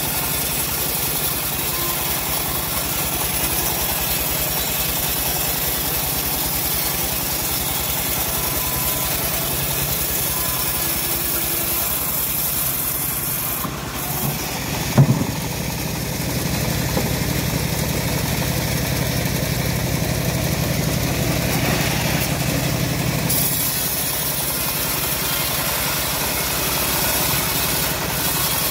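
Engine-driven homemade bandsaw mill running steadily as its blade rips through a teak log, with a single sharp knock about halfway through.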